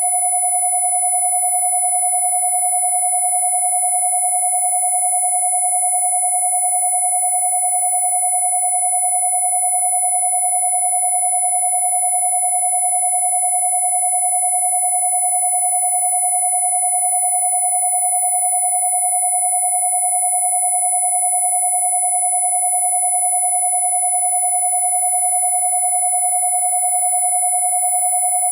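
Two steady synthesized sine tones held unchanging: a mid-pitched 727 Hz tone, the loudest, and a piercing high 10,000 Hz whistle, with fainter overtones above them.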